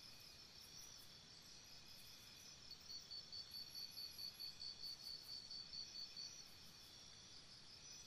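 Faint jungle dawn chorus of insects: several high-pitched chirping trills overlap. About three seconds in, one louder call starts, pulsing at about four times a second, and stops just after six seconds.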